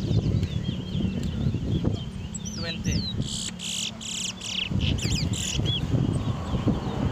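Towa-towa (chestnut-bellied seed finch) singing: phrases of fast, sliding whistled notes with a quick run of bright notes near the middle, over a steady low background rumble.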